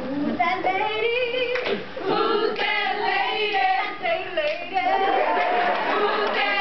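Group of women singing a chant in unison, with a few sharp percussive hits from their step routine.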